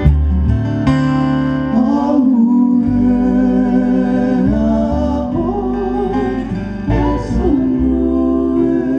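Live Hawaiian song: men's voices singing long held notes over two strummed acoustic guitars and a bass guitar.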